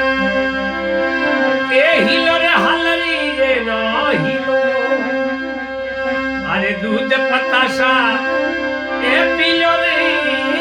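Rajasthani folk music introduction without words: a sustained reed-organ-like chord holds underneath while an ornamented melody with quick slides and trills comes in short phrases every few seconds.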